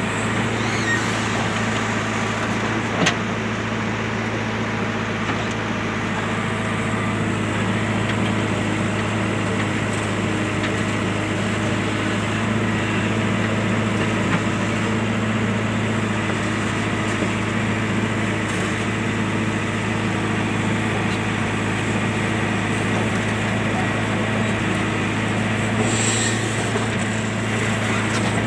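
Diesel engine of a JCB machine running steadily at idle, with an occasional light click.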